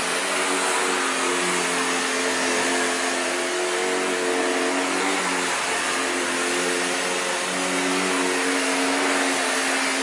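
Shark NV680 Powered Lift-Away upright vacuum cleaner running steadily on carpet: an even rushing hiss with a motor whine that dips slightly in pitch now and then as it is pushed over the floor.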